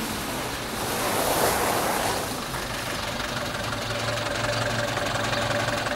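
Engine of an old grey saloon car running steadily at low speed as the car rolls into a rough dirt yard.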